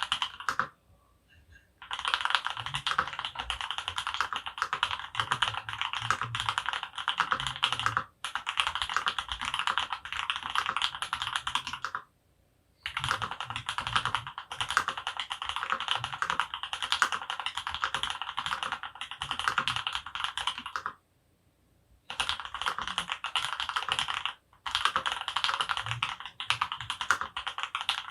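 Fast typing on an Archon RE:AL Platinum FX mechanical keyboard with lubed H1 switches on an aluminum plate: long runs of rapid keystrokes, broken by a few short pauses.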